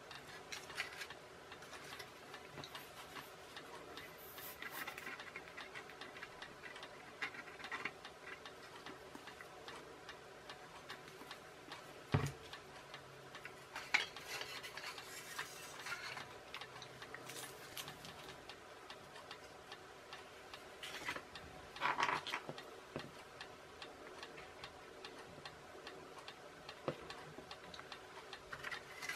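Quiet handling of a small foam model plane and a glue bottle at a workbench: soft rustles and light taps, with a few sharper knocks, one near the middle and another about three-quarters through. A steady clock-like ticking sits in the background.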